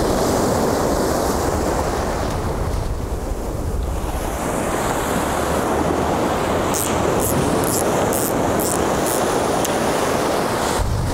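Ocean surf breaking and washing over the shallows in a steady wash of foaming water.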